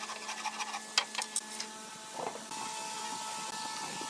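Wooden frame saw cutting a board by hand: a run of quick rasping strokes and knocks, with three louder ones about a second in. About two and a half seconds in, a steady machine hum with a whine takes over.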